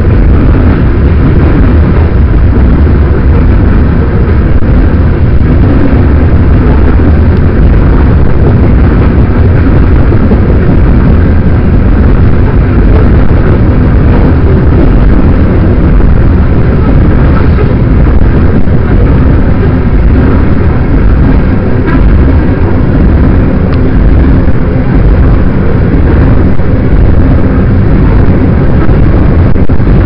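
Loaded coal gondolas rolling steadily past, steel wheels on rail. Heavy wind buffeting on the microphone runs through it.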